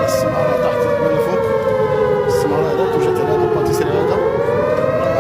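Siren wailing. Its pitch slides slowly down for nearly four seconds, then rises again near the end.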